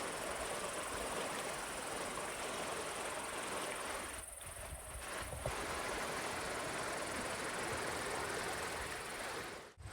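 A steady, even rushing hiss that dips briefly about four seconds in and cuts off abruptly just before the end.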